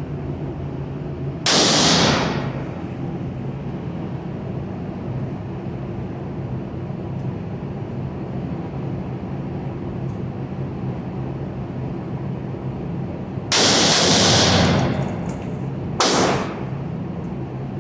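Three single rifle shots from a scoped AR-style rifle, one about a second and a half in and two more close together near the end, each with a short ringing echo. A steady low hum sits underneath between the shots.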